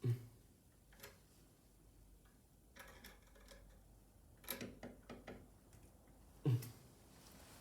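Scattered small clicks and light knocks from handling the wall outlet, its wires and a screwdriver, with two duller thumps, one at the start and one near the end.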